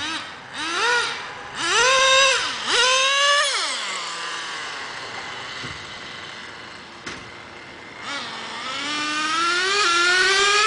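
Traxxas Jato 3.3 RC buggy's small two-stroke nitro engine revving. Three short high-pitched blips rise and fall in the first few seconds, then after a lull one long rising rev builds as the car speeds down the street.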